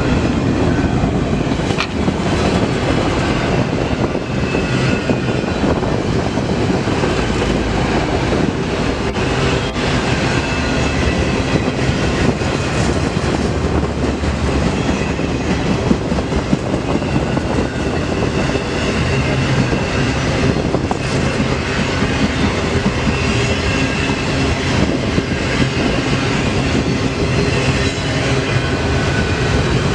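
Freight cars of a CSX manifest train rolling past: a steady loud rumble of steel wheels on rail, with clicks over the rail joints and a faint high wheel squeal at times.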